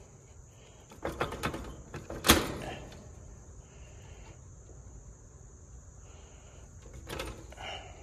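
Clicks and knocks from parts and wiring being handled inside an air-conditioner condenser's metal electrical compartment, with one sharp metallic knock about two seconds in and more clicks near the end. Insects chirp faintly behind it every couple of seconds.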